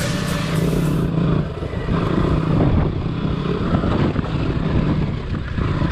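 Motorcycle engine running, its revs rising and falling unevenly. A high hiss stops about a second in.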